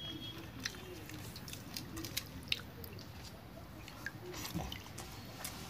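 Eating by hand: fingers working water-soaked rice in a steel bowl, then chewing, with scattered small clicks.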